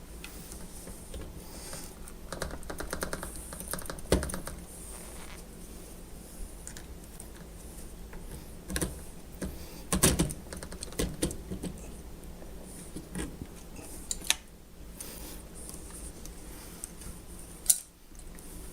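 Scattered clicks and knocks of hand tools and small metal fittings being handled while working on a dishwasher fill valve's hose fittings, with a quick run of rapid ticks about two and a half seconds in and a few louder knocks, over a steady low hum.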